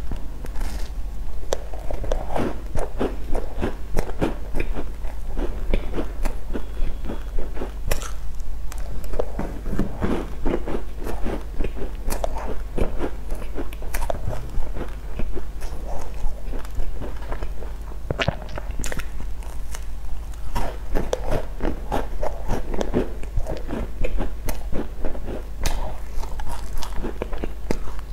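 Close-miked biting and chewing of sesame-seed-crusted buns: a continuous run of small crunches, crackles and chewing sounds over a steady low hum.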